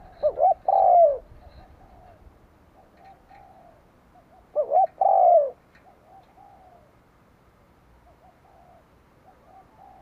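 Spotted dove cooing close by in two loud phrases about four seconds apart. Each phrase is two short notes and then a longer falling coo. Fainter coos from other doves come in between.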